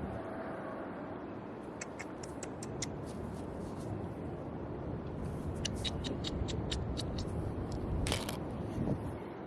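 Pebbles and shells clicking and scraping against each other, with many small sharp clicks over a steady rush of background noise and a louder crunch about eight seconds in.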